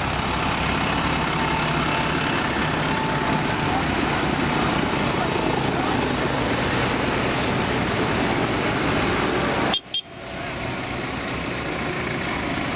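Diesel farm tractors running as a procession drives past one after another, among them Ford, New Holland and Massey Ferguson tractors. The sound cuts out briefly about ten seconds in, then resumes.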